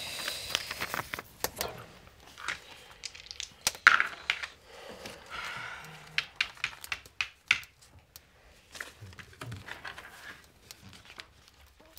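Paper Monopoly money and property cards being handled on a wooden table: irregular rustling with scattered light clicks and taps.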